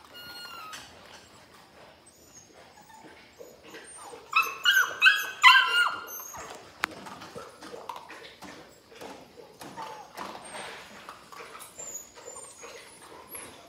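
Labrador retriever puppies yipping and whimpering: a quick run of about five loud, high-pitched yips about four seconds in, with fainter whimpers and squeaks before and after.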